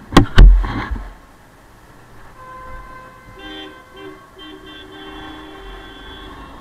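Two loud thumps right at the start, then vehicle horns honking in traffic: one steady horn tone, then another horn giving a few short toots and a long held blast that stops near the end.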